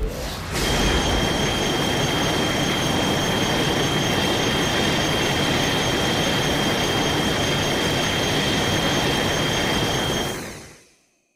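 Kaiju sound effect: a loud, harsh rush of noise with a steady high-pitched squeal over it, held for about ten seconds before fading out quickly.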